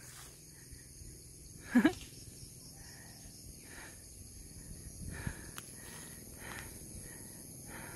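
Steady high-pitched drone of insects in tropical forest. About two seconds in, one short, loud voice-like call drops quickly in pitch.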